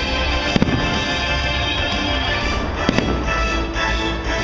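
Fireworks shells bursting with sharp bangs, the two loudest about half a second in and about three seconds in, over a bed of steady show music.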